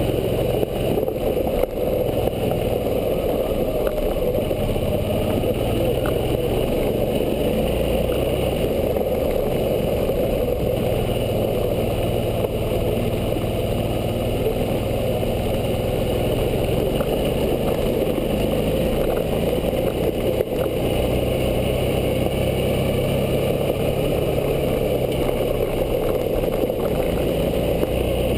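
Suzuki V-Strom 650's V-twin engine running on the move, its note rising and falling every few seconds with the throttle, under a steady rush of road noise from tyres on gravel and wind.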